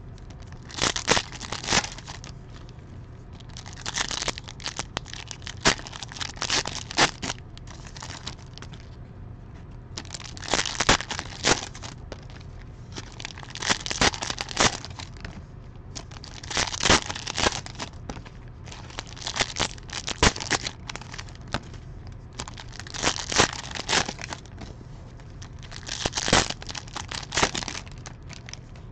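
Plastic wrapping crinkling and tearing as a trading-card hobby box and its packs are torn open, in irregular rustling bursts every second or two.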